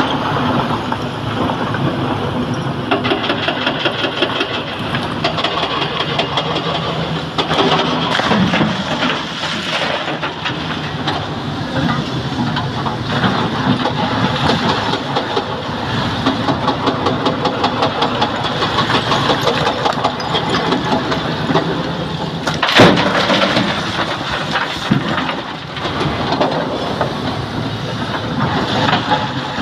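Heavy diesel excavator engine running under load while a SANY SY225 excavator digs broken quarry rock, with rock grinding and clattering. One loud bang comes about three-quarters of the way through.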